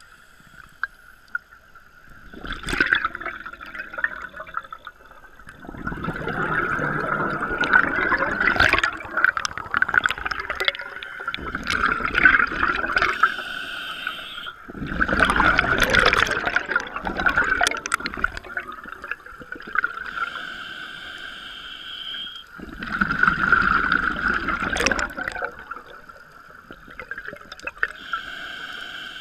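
A scuba diver breathing through a regulator underwater: loud surges of rushing, gurgling exhaust bubbles, each lasting a couple of seconds, about five times, with a fainter hiss between them as air is drawn in. A steady high tone runs underneath throughout.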